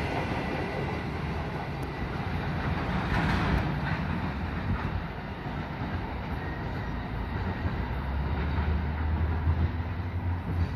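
Empty steel flat wagons of a passing freight train rumbling and clattering over the rails, easing off a little as the train draws away. A low steady hum comes in past the middle.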